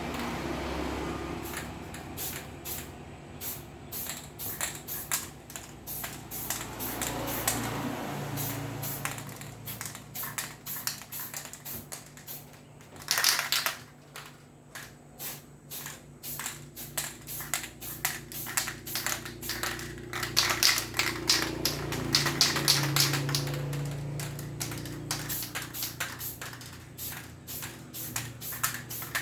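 RJ London aerosol spray-paint can spraying in short, rapid spurts, several a second, with one longer spray about halfway through.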